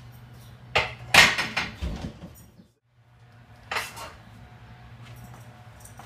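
A loaded barbell clanking into the squat stands, its iron plates rattling for about a second, after a sharper knock just before. A shorter, sharp noise follows a few seconds in, over a steady low hum.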